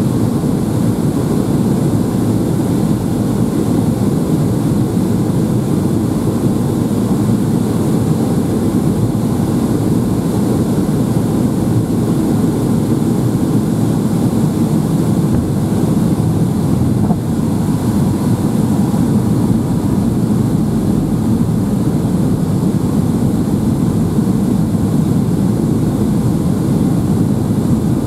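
Steady cabin noise inside a Boeing 757-200 on approach with flaps extended: an even rush of engine and airflow noise, heaviest in the low range, with no changes.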